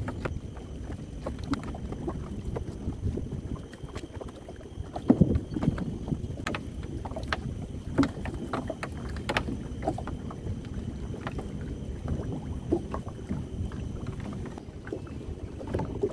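Steady low rumble of wind and water with irregular clicks and knocks of gear being handled, the loudest cluster of knocks about five seconds in.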